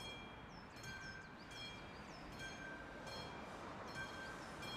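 Level-crossing warning bell of the classic type on an AŽD 71 crossing installation, striking about once every 0.8 seconds, six times here, each strike ringing briefly: the crossing warning that a train is approaching.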